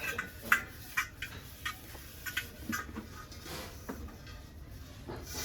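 A series of irregular light clicks and taps, about a dozen, the sharpest in the first second or so.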